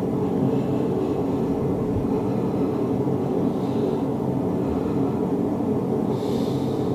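Steady low rumble, even in level throughout, like a running vehicle or engine.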